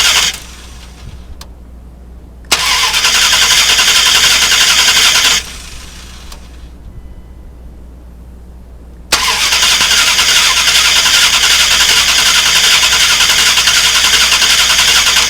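Starter motor cranking the 2000 Dodge Durango's 5.9-litre V8 in three steady spells: a run that stops just after the start, about three seconds of cranking from around 2.5 s, and a longer run from about 9 s in. The engine never catches: a no-start, with only a very weak ignition spark.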